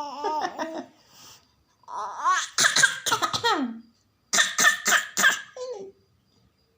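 A young child coughing in short bursts and laughing, after a sung note that trails off about a second in.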